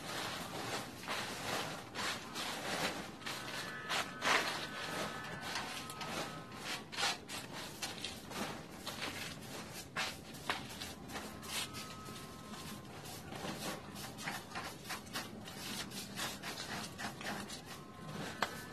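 Irregular rustling with light knocks and patters: dry leaves and debris being cleared out of a roof gutter and dropping down into the alley.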